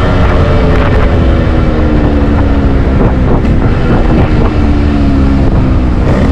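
Yamaha RX100's 98 cc two-stroke single-cylinder engine on the move, its pitch falling steadily as the revs drop off, with some uneven crackle midway. Wind buffets the microphone.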